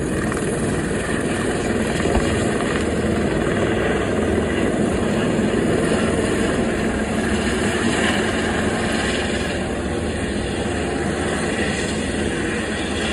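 Light helicopter running at full power as it lifts off and climbs: a steady turbine whine mixed with rotor noise, with no pause throughout.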